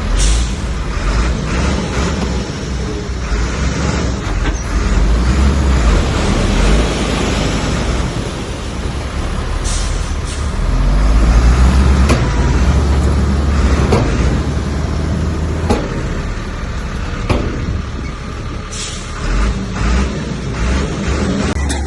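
Heavy diesel earthmoving machinery working: a loud engine running under load, with a low rumble and grinding, and several sharp clanks or knocks of metal and stone through it.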